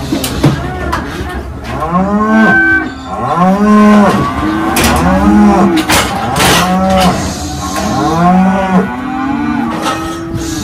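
Several cattle mooing over and over, their low calls overlapping one after another. A few sharp metallic clanks from the steel cattle crush and its gates cut in among the calls.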